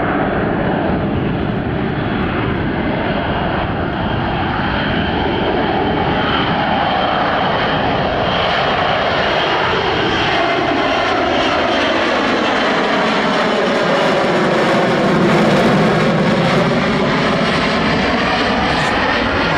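F-35B's F135 jet engine running loud and steady at high power in slow, near-hover STOVL flight, its tone slowly phasing and sweeping as the jet moves.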